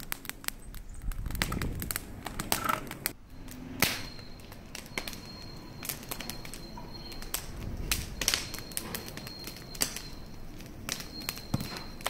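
Wood bonfire burning, with frequent sharp crackles and pops from the burning planks and logs over a low flame rumble.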